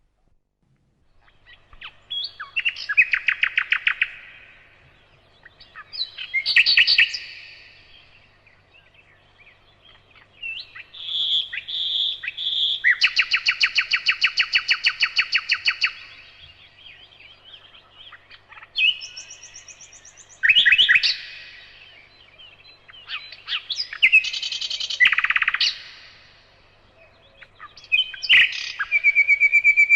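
Bird chirping and trilling in bursts of fast, evenly repeated high notes, several phrases of a few seconds each separated by short pauses.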